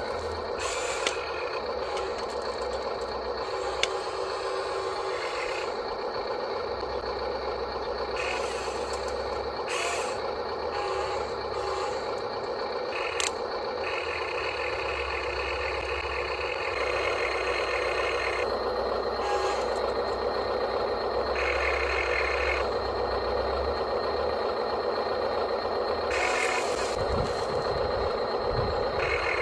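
Radio-controlled model construction machines working: a steady whine of small electric motors and gearboxes, with higher whirring that starts and stops several times as the machines move.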